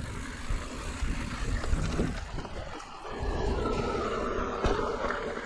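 Mountain bike riding a dirt singletrack: rumble of the tyres over the ground and wind on the camera's microphone, with small knocks. A steady droning hum joins about halfway through.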